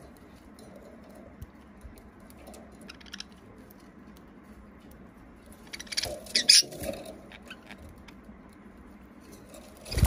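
Budgerigars moving about in a wire cage. It is quiet for most of it, then a short flurry of scratchy clicks and scrabbling comes about six seconds in, and a loud flutter of wings comes at the very end.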